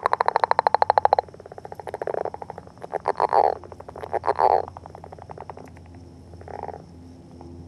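Northern leopard frog calling in courtship: a loud, rapid snoring rattle that stops about a second in, then a softer pulsed stretch and a few short grunting chuckles.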